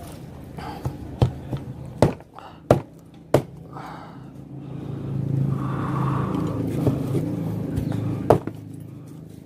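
A large kitchen knife chopping through a roasted whole chicken and striking a plastic cutting board: about six sharp chops in the first few seconds and one more near the end. A low, steady rumble swells for a few seconds in the middle.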